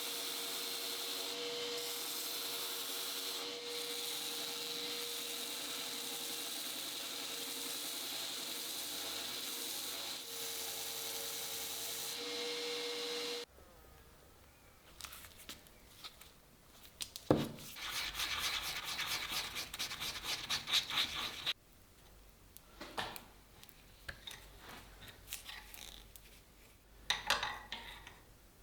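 A small power tool runs steadily and stops abruptly about halfway through. After that comes hand work on a metal blade: irregular rubbing and scraping, one sharp click, and a quick run of strokes.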